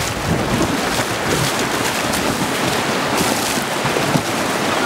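Whitewater rapids rushing and splashing around a raft, a steady, loud roar of churning water with short splashes.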